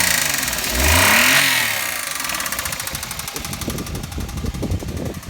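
Car engine with an abnormal noise, which the owner takes for a blown engine, blipped twice in quick succession and then settling into an uneven idle with irregular low knocking.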